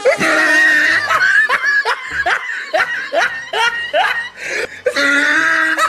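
A person laughing hard: a long held cry, then a run of short rising laughs about three a second, and a held note again near the end.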